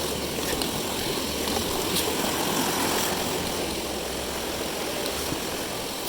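Mountain stream water rushing steadily, with a few faint clicks.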